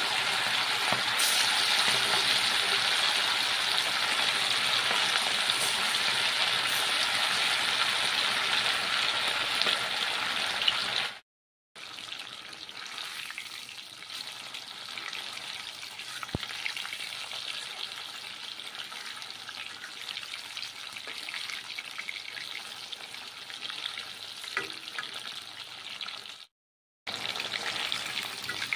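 Battered chicken pakoras deep-frying in hot oil in a metal kadai: a steady, dense sizzle, loudest for the first ten seconds or so, then quieter, cutting out briefly twice. Later a metal spatula turning the pakoras gives a few light taps and scrapes against the pan.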